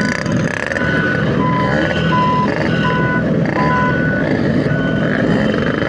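Vehicle reversing alarm beeping, alternating between a lower and a higher tone about twice a second, over a steady engine rumble.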